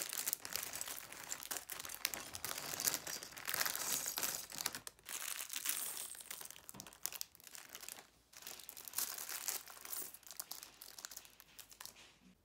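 Thin plastic LEGO parts bags being torn open and crinkled, with many small clicks of plastic bricks being tipped out and spread over a carpet. The crackling is busiest at first and thins out in the last few seconds.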